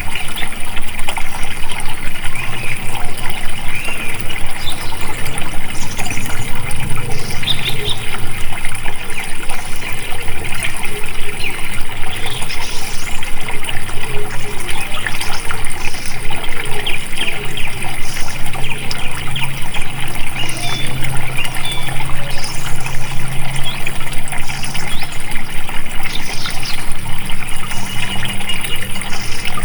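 Flowing water running steadily and loudly, an unbroken rush with trickling detail.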